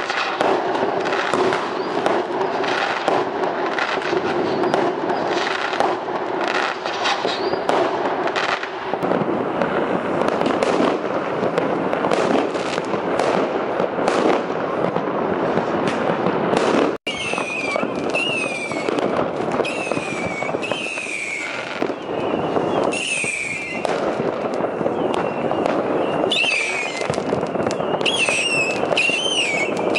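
A dense barrage of fireworks and firecrackers going off on all sides, a constant crackle of bangs and pops. After a brief cut about halfway through, shrill wavering whistles from whistling fireworks rise and fall over the crackle.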